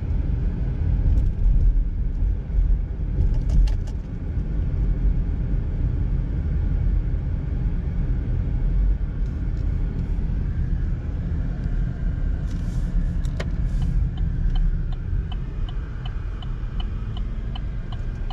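Car interior while driving slowly on a city street: steady low rumble of the engine and tyres on the road, with a few scattered clicks. Near the end a regular light ticking starts, about two a second.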